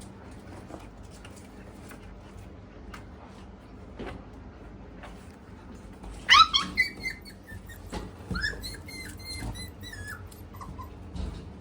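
An Australian Shepherd dog whining: faint clicks and shuffling at first, then a loud, sharply rising whine about six seconds in, followed by a string of short high-pitched whines.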